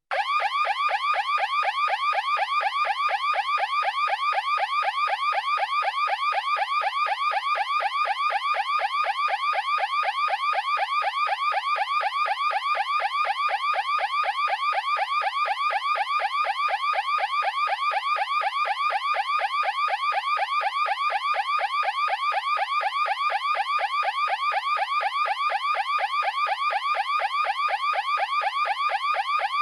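Electronic alarm sound effect: a rapid, evenly repeating pulsed tone, each pulse a short upward chirp, like a car alarm. It starts abruptly and keeps up without change.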